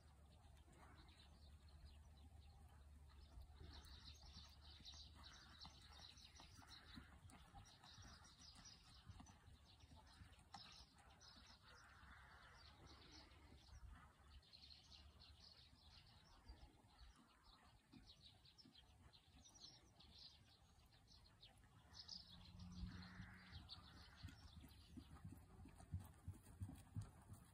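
Faint birds chirping in the background, with a horse's hoofbeats on a sand arena surface growing louder near the end.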